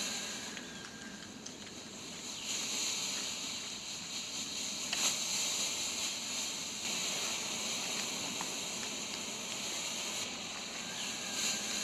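Pull-string colour smoke grenade hissing steadily as it pours out blue smoke, the hiss swelling and easing every few seconds.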